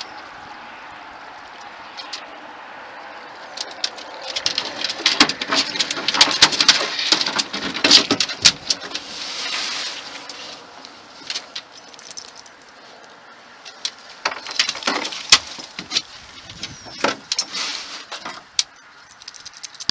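Dogs moving about inside a Canyak Utility U Series kayak hull: claws clicking and scraping on the hull, with metallic jingling and scattered knocks, in irregular spurts that are busiest in the first half and again near the end.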